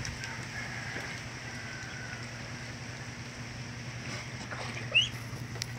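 Two-week-old ducklings peeping faintly over a steady low hum, with one louder, short rising peep about five seconds in.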